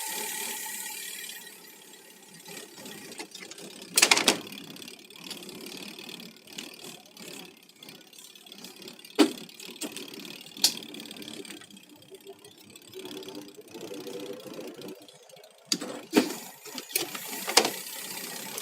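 Washing machine running with a faint motor hum, broken by several sharp clicks and knocks: the loudest about four seconds in, and a cluster near the end.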